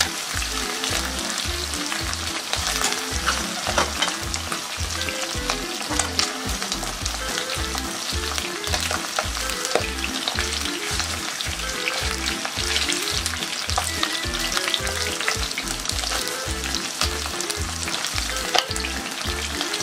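Chicken skin frying in its own rendered fat in a wok: a steady sizzle with scattered sharp pops as fat and water cook out of the skin.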